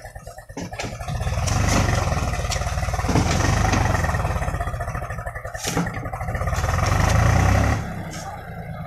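Diesel farm tractor engine revved hard under load as it strains to pull a loaded trailer out of mud, then dropping back to a lower idle about a second before the end. A few sharp knocks sound over it.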